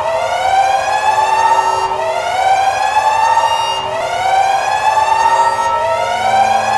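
Siren sounding a repeated rising whoop: each wail sweeps up in pitch, then cuts back and starts again about every two seconds.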